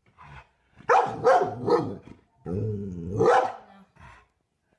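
A dog barking: three quick barks about a second in, then a longer drawn-out bark in the middle.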